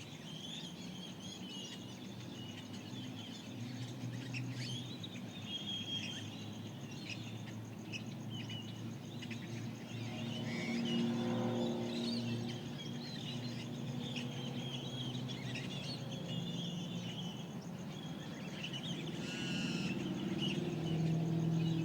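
Several desert birds chirping and warbling at dawn in the Mojave Desert, short high calls overlapping throughout, over a low background rumble. About ten seconds in, a low, distant droning sound swells for a few seconds.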